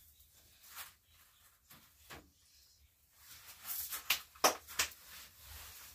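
A seed packet crinkling and rustling as it is handled, with a few faint ticks, then a cluster of sharp crackles about four seconds in as seeds are shaken out into the hand.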